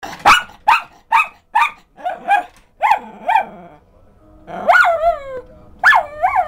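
A schnauzer barking excitedly at a dog on the television: a quick string of about eight sharp barks, then, after a short pause, a few higher, drawn-out yelping barks.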